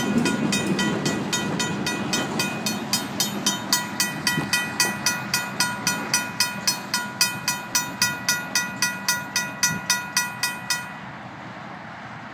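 RACO mechanical crossing bell ringing steadily at about three strikes a second while the rumble of a tank-car train rolling over the rails fades away. The bell stops about eleven seconds in as the crossing signals shut off once the train has cleared.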